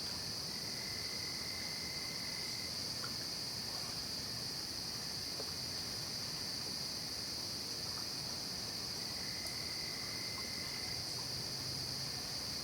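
Night insect chorus of crickets: a steady, unbroken high-pitched trill, with a fainter, lower trill that comes in twice for a second or two.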